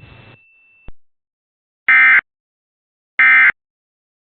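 Emergency Alert System end-of-message signal: two short, loud bursts of digital data tone, about a second and a third apart, that mark the end of the alert. Just before them, a short click.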